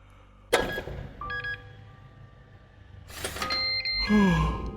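Door sound effects: a sudden bang, then a longer scraping, sliding noise with a falling creak, over held, eerie music tones.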